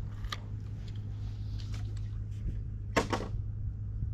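Sharp clicks from the fishing rod and reel being handled just after a cast with live shrimp: a faint one near the start and a louder one about three seconds in. A steady low hum runs underneath.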